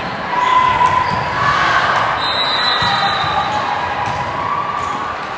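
Volleyball play echoing in a large hall: scattered thuds of balls being struck and bouncing over a steady hubbub of voices.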